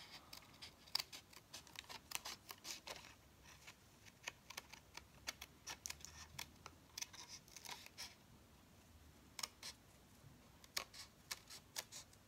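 Small craft scissors snipping thin cardstock: faint, crisp snips in irregular runs with short pauses between them.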